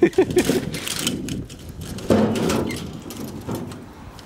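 Clattering and rattling of wiring looms and sheet-metal parts being pulled loose from a scrapped DC drive cabinet: a quick run of knocks at the start, a louder scraping crash about two seconds in, then scattered clicks.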